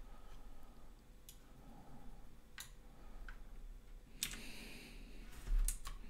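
Computer keyboard keys and mouse buttons clicking: about half a dozen separate sharp clicks, roughly a second apart, two in quick succession near the end.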